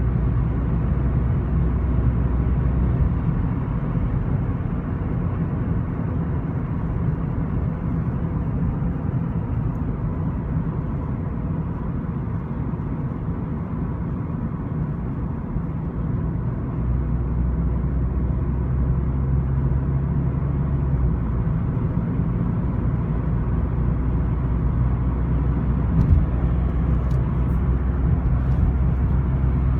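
Steady road and engine rumble inside the cabin of a moving 2014 Volkswagen Golf Mk7 GTI, with a faint door rattle and a few sharp ticks near the end. The owner traces the rattle to the door window, since it stops when the glass is lowered slightly.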